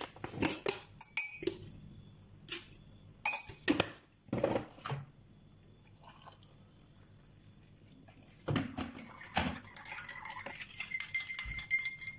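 Kitchen utensils and dishes being handled: a few separate knocks and clinks, a quiet pause, then a busier run of clinking and scraping over the last few seconds.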